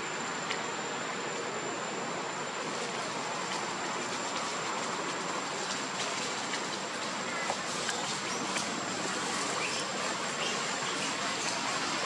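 Steady outdoor forest ambience: an even hiss with a thin, high, steady whine running through it and a few faint ticks.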